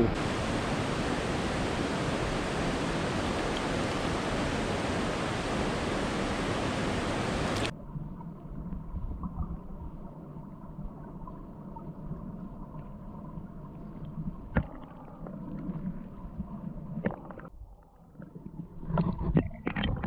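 Creek water rushing, a steady even hiss. About eight seconds in, it cuts off sharply to the muffled sound of the current heard underwater, with a faint steady hum and a few scattered knocks.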